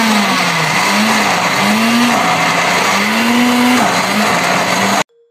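Panasonic countertop blender running at full speed, puréeing a thick green mint-and-coriander chutney. The motor's pitch dips and recovers several times as the thick mix loads it, and the blender cuts off abruptly near the end.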